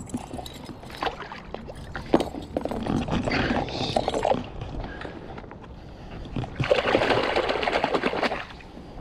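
Water sloshing and splashing in two longer bursts about four seconds apart, with scattered small knocks and clicks.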